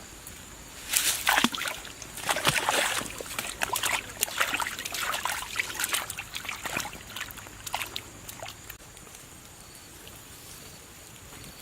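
Water splashing and sloshing in a run of short, irregular splashes that lasts several seconds, loudest near the start, then dies away.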